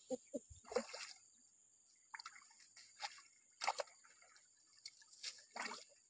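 Hands groping through shallow stream water, giving a few small, scattered splashes and drips.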